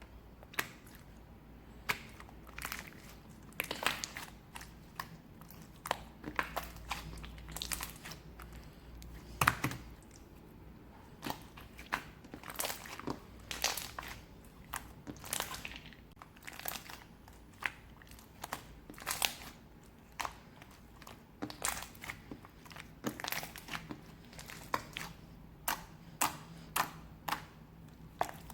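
Close-up crisp crunching and crackling, irregular, about one to three sharp cracks a second with no voice.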